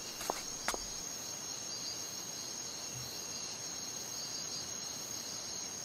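Steady high-pitched chirring of insects, with two faint clicks in the first second.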